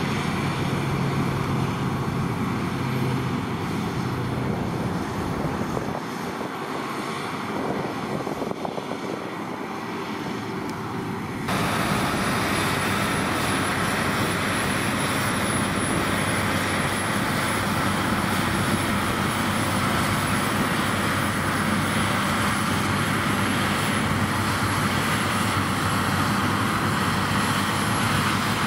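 Claas Lexion 670 combine harvester working in the crop, a steady engine and machinery drone. About eleven seconds in the sound jumps abruptly to a louder, fuller drone, with the combine and a Fendt 724 tractor pulling a chaser bin running side by side.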